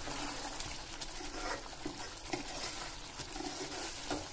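A spoon stirring a thick curry in a steel pan, with a few light clicks of the spoon against the metal.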